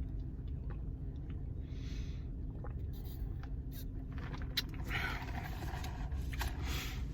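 Steady low rumble with a faint hum, with small clicks and a stretch of soft rustling noise in the second half.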